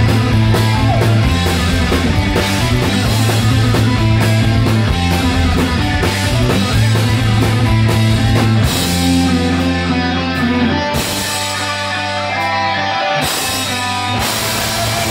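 Live rock band playing loud with electric guitars, bass and drum kit. About nine seconds in the drums drop out, leaving held guitar and bass notes, and the drums come back in near the end.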